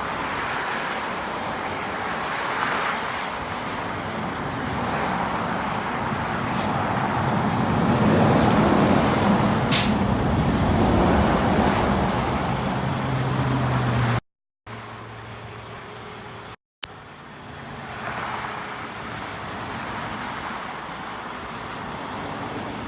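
Steady road and engine noise of a moving truck, swelling somewhat in the middle, then cut off twice for a moment and resuming quieter.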